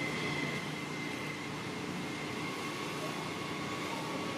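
Steady background noise: a low hum with a faint, steady high-pitched whine over it, and no distinct calls.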